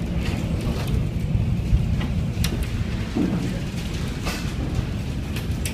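Severe storm noise: a steady low rumble of wind and rain, with scattered sharp taps.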